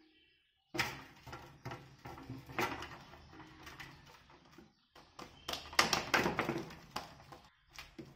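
Wheat-flour dough being kneaded by hand in a large brass paraat: a run of squishes, slaps and knocks of the dough and knuckles against the metal plate, breaking off briefly twice.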